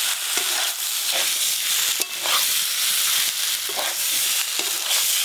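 Broccoli and potato pieces sizzling in spice paste in a metal wok, with a metal spatula scraping and stirring against the pan roughly once a second. The vegetables are being fried down in the masala before water is added for the curry.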